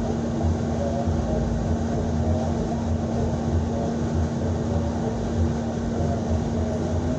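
Cabin sound of a NABI 60-BRT articulated city bus at a crawl: steady low engine rumble with a constant droning tone over it.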